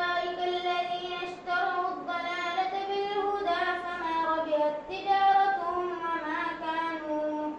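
A boy's voice chanting Quranic recitation in Arabic, in a melodic tajweed style with long, slowly wavering held notes and short pauses for breath.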